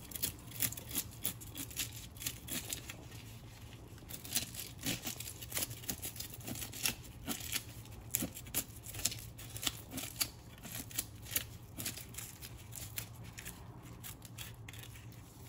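Knife scraping scales off a whole fish, many quick, irregular rasping strokes, over a faint steady low hum.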